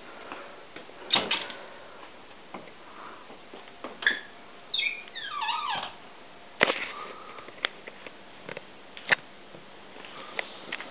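Sharp knocks and clicks from a Servis M2001W tumble dryer's door and controls being handled, with a brief falling squeal about five seconds in.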